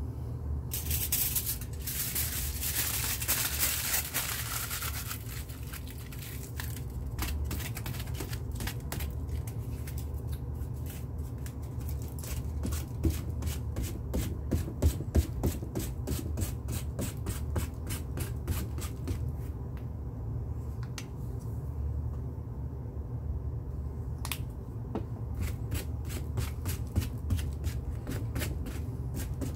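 Quick, irregular taps of a small hand-held dabber pressed again and again onto a stretched canvas, several taps a second, after a short rustling hiss in the first few seconds. A steady low hum runs underneath.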